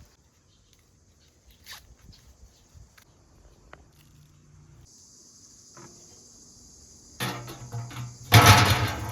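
Crickets chirring in a field: a steady high-pitched hiss that comes in about halfway, after a stretch of faint scattered clicks. About two seconds before the end, a much louder sound with a low, steady hum cuts in over it.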